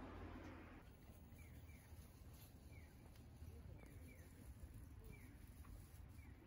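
Faint bird chirps: short, quick downward notes, often in pairs, about once a second over a low steady background hum.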